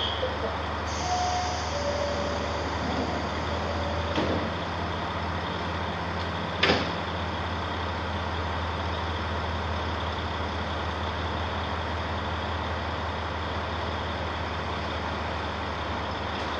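Diesel railcar's engine idling while it stands at the platform, a steady low hum. A few brief faint tones sound in the first few seconds, and a single sharp click comes about six and a half seconds in.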